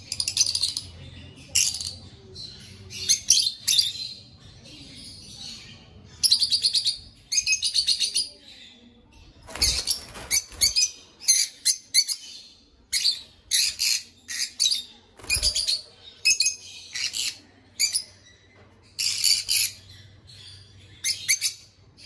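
Rosy-faced lovebirds chirping in short, shrill bursts, several birds calling over and over. Two dull thumps sound, about ten and fifteen seconds in.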